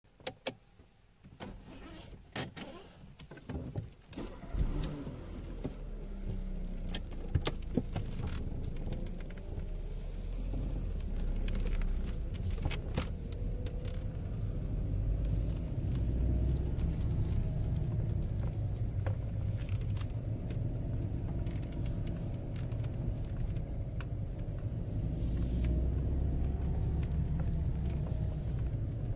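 Volkswagen Polo 6N2 driving, heard from inside the cabin: a steady low engine and road rumble whose pitch drifts up and down. A few sharp clicks and knocks come first, and the rumble comes up about four to five seconds in.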